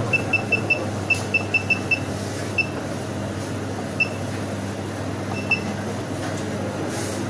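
Keypad beeps from an Aczet karat analyzer's electronic balance as its buttons are pressed. A quick run of about nine short, high beeps in the first two seconds steps through a setting, followed by three single beeps spaced a second or more apart, over a steady low hum.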